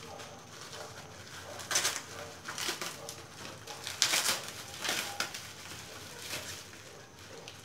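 Clear plastic bag crinkling and rustling in short bursts, about six of them, as it is worked open by hand.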